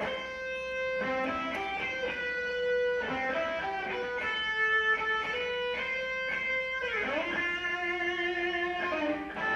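Electric guitar playing a melodic riff of single picked notes, with notes sliding up in pitch about seven seconds in.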